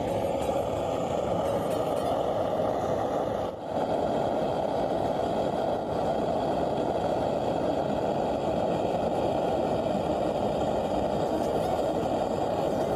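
Gas torch flame blowing steadily against a lemon's skin, a constant hiss, with a brief dip about three and a half seconds in.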